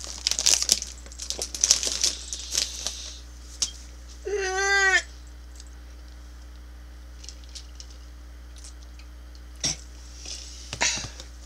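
A snack bag crinkling for the first few seconds, then a single meow, a bit under a second long with the pitch rising and falling, about four seconds in; after it only a few faint clicks.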